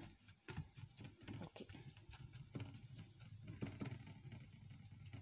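Hand tossing sliced bitter gourd rounds in a little jaggery water in a steel bowl: faint, irregular wet clicks and splashes of the slices against each other and the bowl.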